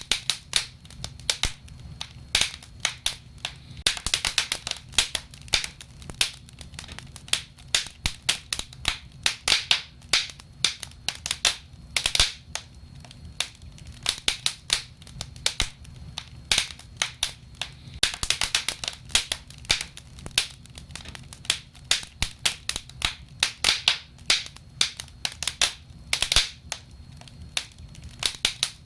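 Wood fire crackling: logs burning with many irregular sharp snaps and pops, several a second, over a faint low hum.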